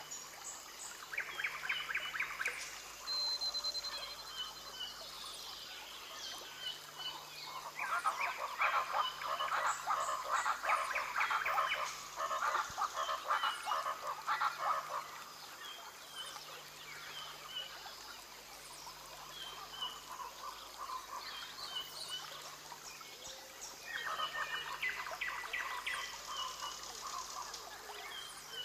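Rainforest ambience of calling creatures. Rapid pulsed trills come and go in waves, loudest about a third of the way in and again near the end, with scattered short chirps and a brief high whistle early on.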